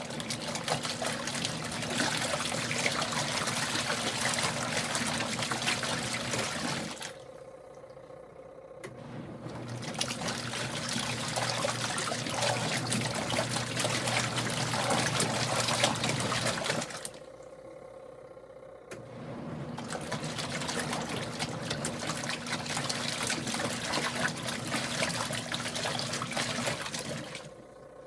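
Kuppet portable washing machine agitating its load, its motor humming and the water sloshing in runs of about seven to eight seconds, with pauses of about two seconds between runs.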